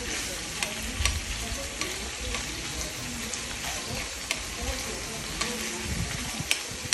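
Meat sizzling in a frying pan on a portable gas stove, a steady frying hiss. A few sharp clicks come as metal tongs turn the meat against the pan.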